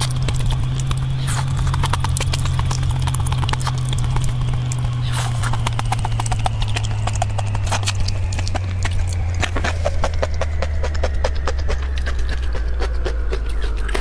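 Close-miked eating of raw red shrimp: dense wet clicking, smacking and sucking as the shrimp is slurped and its shell peeled, over a steady low hum.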